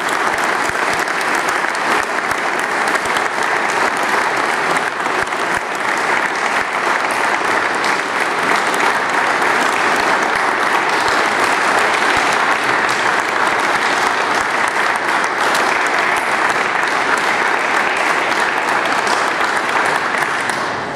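A large seated audience applauding, dense steady clapping that keeps going for about twenty seconds and dies away near the end.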